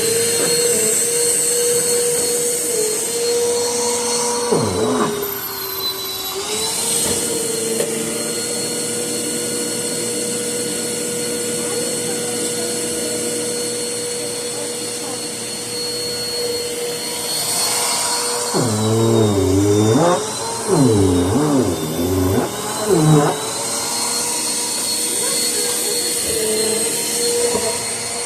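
Vacuum cleaner motor running steadily with a high whine. Its pitch sags for a couple of seconds about five seconds in, then swoops up and down several times with louder surges a bit past the middle.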